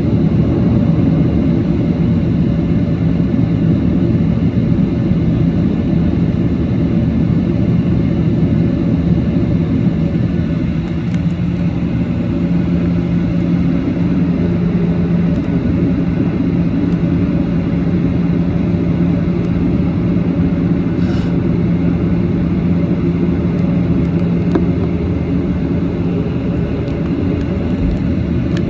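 Boeing 737-800's CFM56-7B turbofan engines running steadily, a low, even noise with a constant hum and no rise in power.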